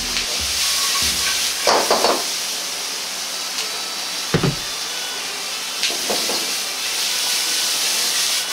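Onion and carrot sizzling in hot pork fat in a carbon-steel wok over a gas flame: a steady frying hiss, with a few knocks of the metal ladle against the wok as the vegetables are stirred.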